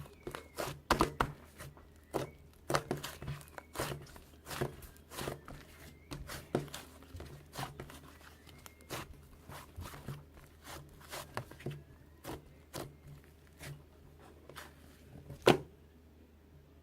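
Irregular sharp taps and crinkly handling noises at close range, about two or three a second, with one louder knock near the end.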